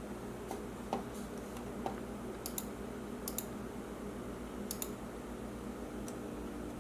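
Scattered light, sharp clicks, several in quick pairs, over a steady low hum.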